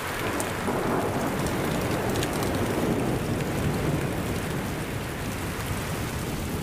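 A long roll of thunder over steady heavy rain. The rumble starts abruptly, is strongest through the first few seconds, then eases.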